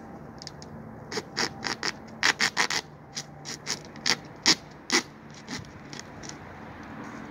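A serrated blade sawing at the plastic cap of a Coke bottle: about fifteen short, sharp scraping strokes in quick uneven runs over about four seconds, starting about a second in.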